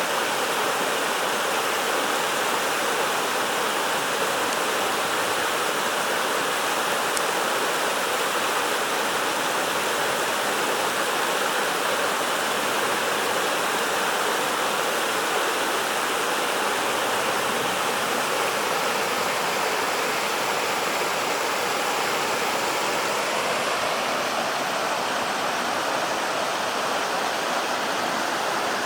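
Waterfall cascading down over rocks: a steady rush of water.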